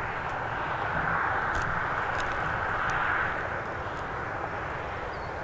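Highway traffic: a broad rushing noise of a passing vehicle that swells about a second in and eases after about three seconds, over a low rumble.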